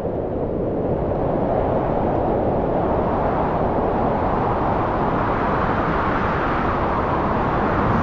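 Steady rushing wind noise with no motor whine in it, building over the first second or two, then holding level until it cuts off abruptly at the end.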